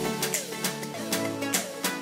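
Background music of plucked string notes over a steady beat.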